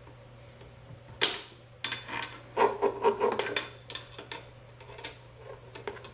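Steel wrench clicking and scraping against the bolt and metal parts of a mini mill as it is fitted and turned in a tight space. A sharp metallic clack about a second in is the loudest sound, followed by a run of rattling clinks and then a few lighter taps.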